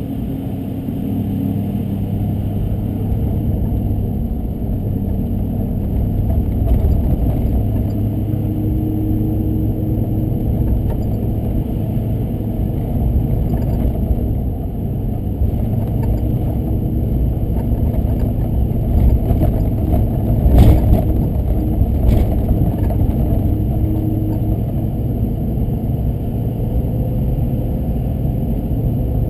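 Car driving on snow-covered streets: a steady low rumble of engine and road noise whose pitch drifts slowly up and down. A sharp knock about two-thirds of the way through, with a lighter one shortly after.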